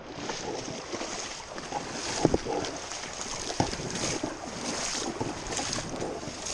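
Shallow creek water splashing and sloshing as someone wades through it in waders, with a few sharp knocks.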